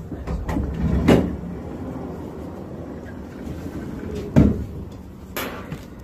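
Cable car cabin rumbling through its station, with two heavy clunks about three seconds apart.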